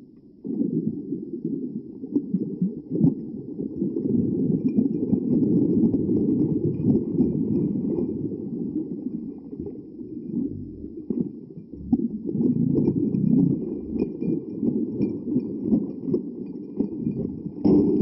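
Muffled, continuous handling noise and water splashing as a hooked pike is fought on a spinning rod and drawn alongside an inflatable boat, with many small knocks throughout.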